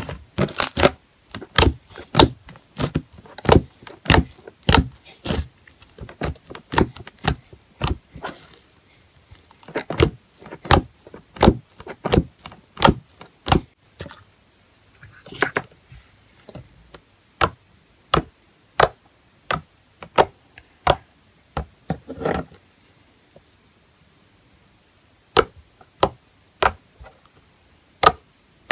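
Fingers poking slime again and again, each poke a short sharp click or pop, in quick runs of about two a second broken by a few short pauses.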